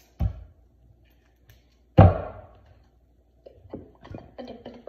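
Knocks on a wooden cutting board as cucumber is smashed: a sharp knock just after the start, a loud heavy thud about two seconds in, then a few lighter taps near the end.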